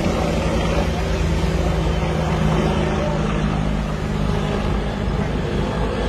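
A steady engine drone, holding an even pitch.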